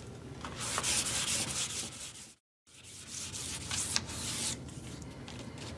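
Sandpaper rubbed by hand along a painted wooden molding, a rough hissing scrape in strokes. It is 320 grit, smoothing out deeper 220-grit scratches before primer and paint. The sound cuts out completely for a moment a little past two seconds in, then the sanding resumes.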